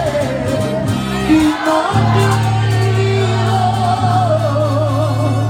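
Live band music with a singer holding long notes with vibrato. About two seconds in, the band settles into a steady held low chord under the voice.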